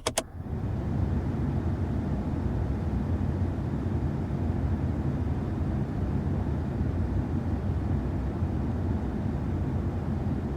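Air blowing from a Mazda CX-5's interior air vents: a steady rush of air, heaviest in the low end. Two quick clicks come right at the start.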